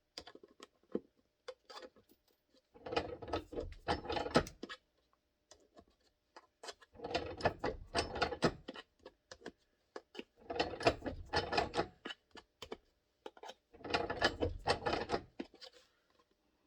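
Ratchet clicking rapidly in four bursts of about a second and a half each, a ratcheting driver tightening the holster's retention screws.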